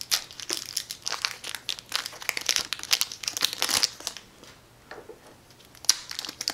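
Plastic packaging wrap crinkling as it is unwrapped by hand. The crinkling is dense for about four seconds, eases off, and gives one sharp crackle near the end.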